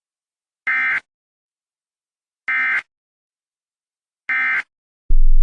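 Emergency Alert System end-of-message data tones: three short bursts of SAME digital warble, about two seconds apart, marking the end of the alert broadcast. Just before the end a loud low buzz starts abruptly.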